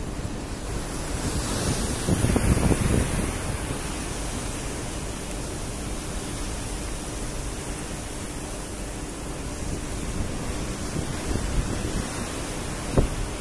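Wind buffeting the microphone over choppy sea, a steady rushing noise with a louder gust about two seconds in and a brief thump near the end.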